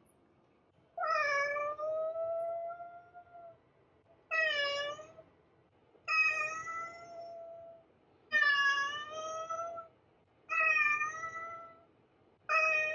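Black domestic cat meowing over and over: six drawn-out meows about two seconds apart, the first one the longest.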